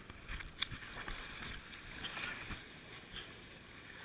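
Shallow seawater lapping and splashing right around the microphone at the water's edge, with a few sharp irregular splashes, the loudest about half a second in.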